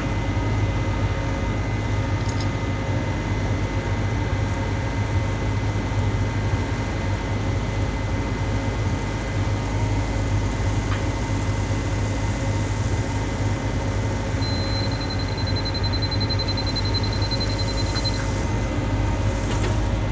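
A construction machine's engine running steadily with a constant low hum, used to dig out the ground for a stone step. A faint, high, rapidly pulsing tone sounds briefly about three-quarters of the way through.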